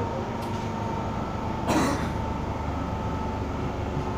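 Interior running noise of an MTR M-Train metro car under way: a steady low rumble with a thin, steady tone. A short, loud burst of noise cuts in once, just under two seconds in.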